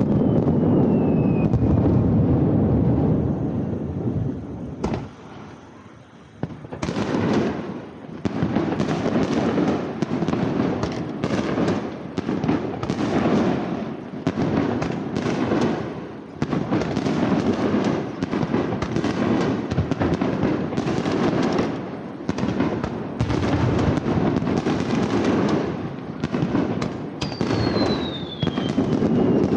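Fireworks finale: a rumbling barrage, a short lull about five seconds in, then rapid, closely packed bangs. Whistles that fall in pitch sound at the start and again near the end.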